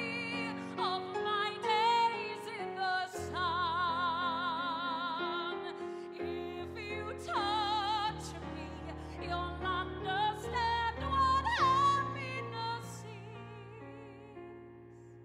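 A woman singing a slow ballad live in a full, operatic style with strong vibrato on held notes, accompanied by a keyboard. The last note fades away near the end.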